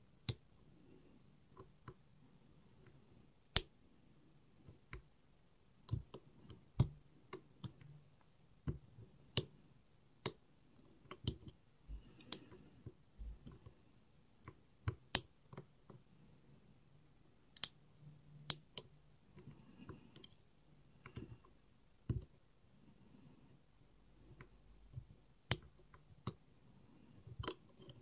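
Lock picking tools clicking and tapping irregularly inside a Robur 2391 safe deposit box lock as it is being picked: sharp single clicks, roughly one or two a second.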